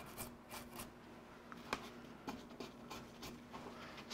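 Faint, light scraping and clicking of a small hand tool against wood, picking glue squeeze-out off a freshly glued joint, with one sharper click a little under two seconds in.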